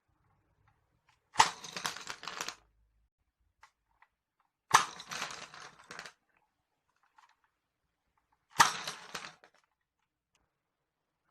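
Three sharp cracks, about three seconds apart, each followed by about a second of wooden colour pencils clattering down onto a hard surface, typical of Nerf gun shots knocking a stack of pencils over.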